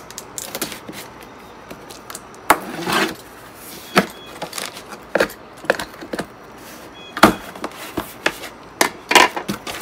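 Utility knife slicing through packing tape and cardboard on a shipping box. Scrapes, rustles and knocks come at irregular intervals as the box is handled, the sharpest about seven seconds in.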